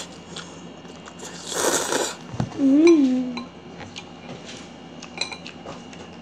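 A child eating Jjapaghetti black-bean instant noodles: a hissy slurp about two seconds in, then a short hummed 'mm' that rises and falls, the loudest sound. Light clicks of chopsticks against the bowl follow.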